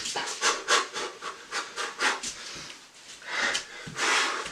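A man breathing hard through a fast punching exercise: quick sharp puffs of breath, a few a second, then two longer breaths out near the end.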